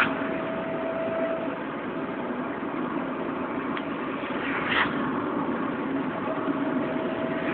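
Van driving along a highway, heard from inside the cab: steady engine and road noise, with a brief louder rush about two-thirds of the way through.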